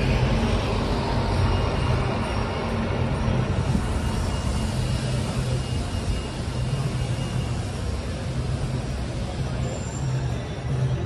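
Busy city street traffic: a large vehicle's engine running close by with a low, pulsing hum over steady road noise.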